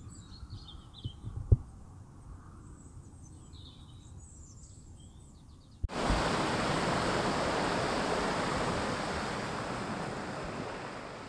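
A few faint bird chirps over a quiet outdoor background, with one short thump. From about six seconds in, a steady, loud rushing noise of wind and water on a flooded road takes over and fades out near the end.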